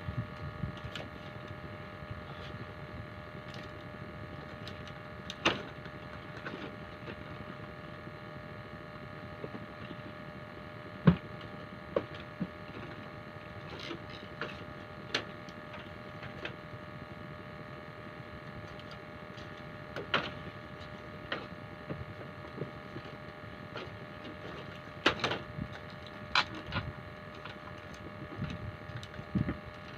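Steady hum of a small motor with several fixed tones, broken by scattered knocks and clicks, the sharpest about eleven seconds in.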